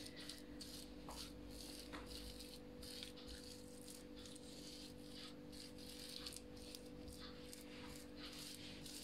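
Faint, soft rubbing and patting of hands spreading lard over a sheet of rolled-out dough, in many short irregular strokes. A steady low hum runs underneath.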